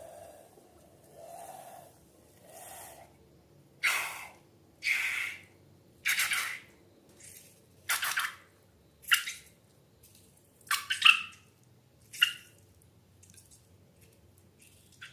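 Slime being worked by hand: a series of short wet squelches about a second apart, sharper and louder toward the middle.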